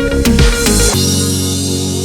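Electronic background music: a beat with falling bass sweeps that stops about a second in, giving way to sustained synthesizer chords.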